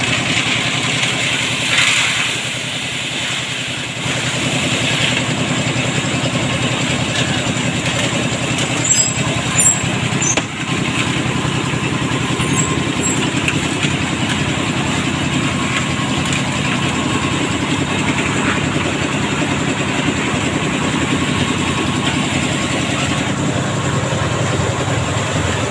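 Concrete mixer's engine running steadily while the drum turns, mixing wet concrete, with a single knock about ten seconds in.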